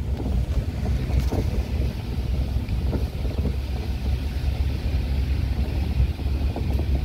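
A pick-up truck driving along a rough dirt track: steady low engine and road rumble, with wind buffeting the microphone and a few light knocks from bumps.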